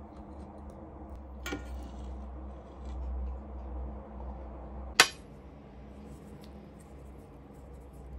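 Metal cutlery clinking against dishes while eating pasta: a light clink about a second and a half in, then a sharper, louder clink about five seconds in, over a steady low hum.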